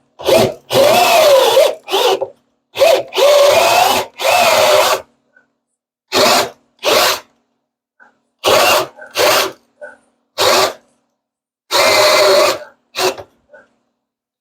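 A drill driving a hole saw into hardwood maple, run in about a dozen short stop-start trigger bursts. The motor's pitch sags and recovers under the load, as the drill strains hard enough to scorch the wood.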